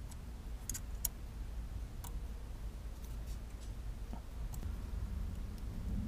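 Scattered light clicks and ticks of small steering-wheel hardware being handled and fitted at the wheel's centre, over a low steady rumble.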